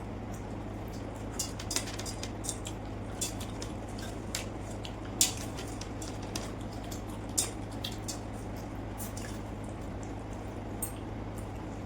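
Close-up eating sounds of pakhala (water rice) with fried fish: scattered wet, squishy clicks of chewing and mixing soaked rice, with two louder clicks about five and seven seconds in, over a steady low hum.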